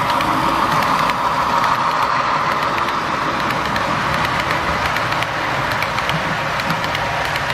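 Model railroad freight train rolling past behind a Santa Fe Alco RS-2 diesel: a steady running hum that is strongest as the locomotive goes by and fades over the first few seconds, with small clicks of the cars' wheels over the rail joints.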